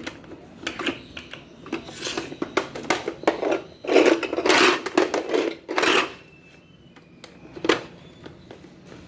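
Plastic Fisher-Price toys being handled, clicking and clattering, with a few longer bursts of clatter about four to six seconds in.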